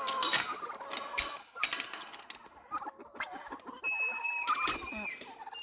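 Chickens clucking, with scattered short knocks. A high, steady squeal of about a second and a half comes near the end.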